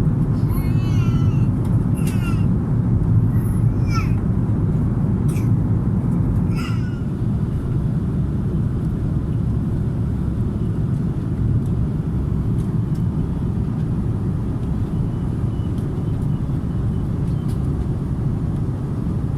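Steady low rumble of an Airbus A330-300's cabin. In the first seven seconds or so, several short high-pitched chirps rise and fall in pitch over it.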